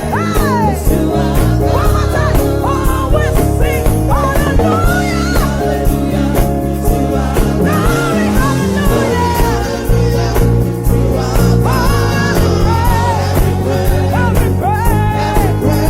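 Live gospel praise music: a lead singer's voice over a full band with a steady beat, with choir voices joining in.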